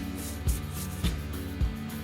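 Background music with a steady beat, a low thump a little under twice a second under sustained tones.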